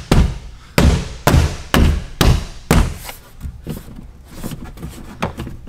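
Plastic interior trim panel on an SUV's midgate being pressed on by hand, its clips snapping into place: about six sharp thumps in the first three seconds, then a few softer knocks.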